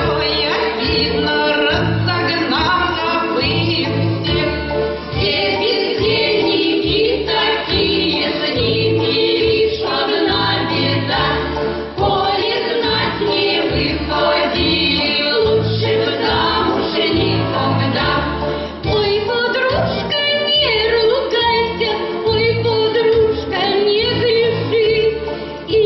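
A vocal ensemble singing a song as a choir over instrumental accompaniment with a steady low beat.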